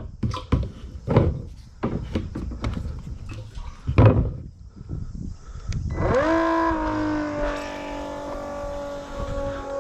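Clunks and knocks of equipment being handled, then about six seconds in a Milwaukee cordless transfer pump's electric motor spins up quickly and settles into a steady whine, running on a small battery as it starts drawing water from the tote.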